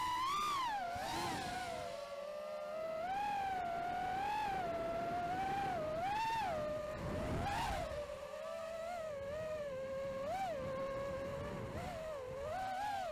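Model airplane's motor and propeller whining, heard close up from the plane itself; the pitch swings up and down again and again, and sits a little lower in the second half.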